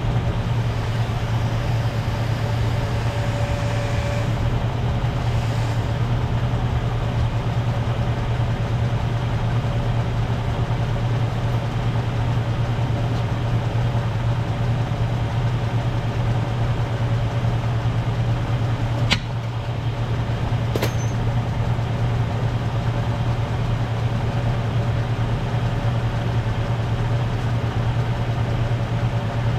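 The 1998 Jeep Cherokee's engine runs steadily at idle with a low, even hum. Two short sharp clicks come about two-thirds of the way through.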